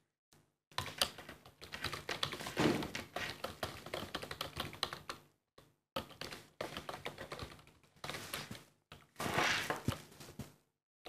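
Computer keyboard being typed on: quick runs of keystrokes with short pauses between them.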